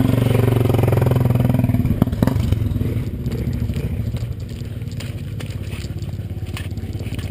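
Quad bike (ATV) engine running over a rocky trail, loud for the first two seconds, with two sharp knocks about two seconds in, then settling to a lower, pulsing run.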